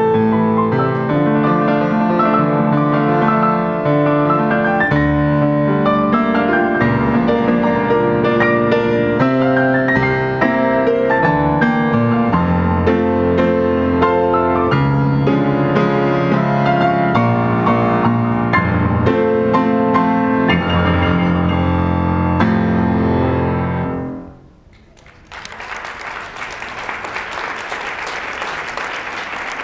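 Solo grand piano playing a classical piece, the music ending about 24 seconds in. After a brief pause an audience starts applauding.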